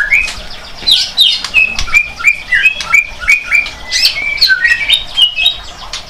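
Caged songbirds chirping: a fast run of short, clear whistled notes, several a second, mixed with sharp ticks.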